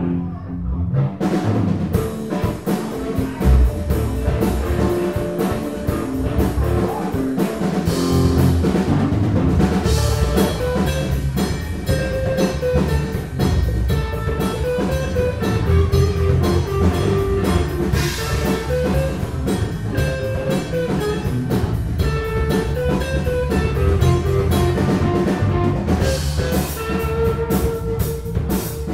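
Live rock band playing with no singing: an electric guitar plays a melodic lead line over electric bass and a drum kit. The drums come in about a second in, with cymbal crashes at intervals.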